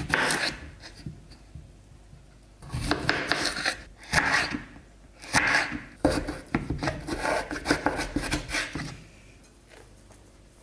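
Several bursts of scraping and rubbing, dotted with small clicks, from food and kitchen things being handled while a meal is got ready.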